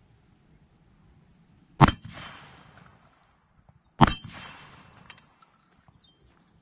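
Two shotgun shots about two seconds apart from a Black Aces Tactical SMAX semi-automatic 12-gauge firing slugs, each shot followed by a short decaying tail.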